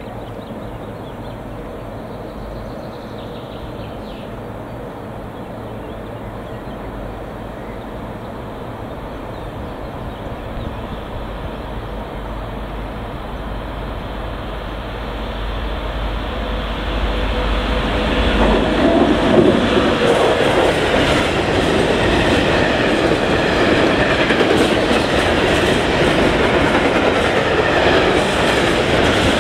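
Freight train hauled by an electric locomotive approaching and passing close by: a distant rumble that swells about two-thirds of the way in, then the steady loud rolling rumble and wheel clatter of a long rake of hopper wagons going past.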